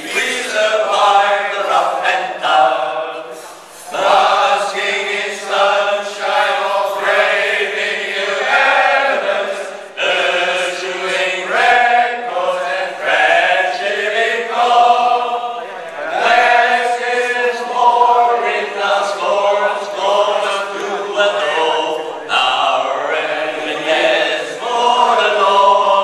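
A group of men singing a song together, with short breaths between phrases about four seconds in and again around ten seconds.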